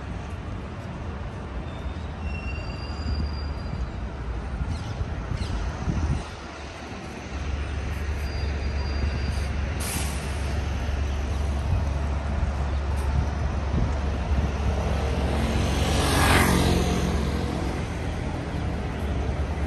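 City street traffic: a steady low rumble of engines, with a few short high squeaks. A heavy vehicle passes close a few seconds before the end, the loudest moment.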